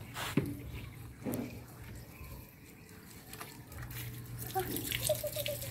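Water running from a garden hose and splashing onto wet concrete.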